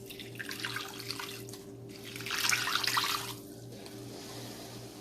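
Water being poured into a cooking pot, in two pours, the second louder, about two to three seconds in. A steady low hum runs underneath.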